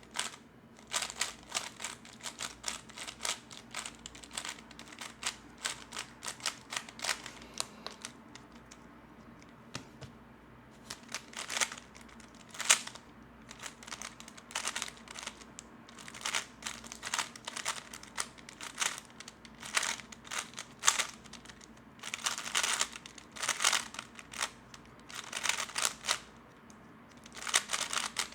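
A 3x3 Rubik's Cube being turned fast during a speedsolve: rapid plastic clicking and clacking of the layers, in flurries with brief pauses between bursts of turns.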